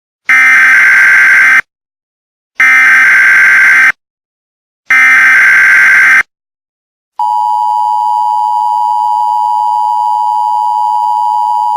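Emergency Alert System alert: three identical bursts of SAME header data screech, each a little over a second long and about a second apart, then the steady two-tone EAS attention signal starting about seven seconds in.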